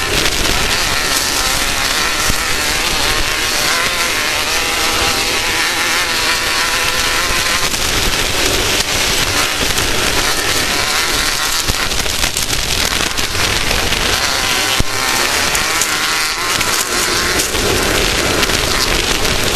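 Off-road race vehicle engine running, its pitch rising and falling a few times, under a loud, steady rushing noise.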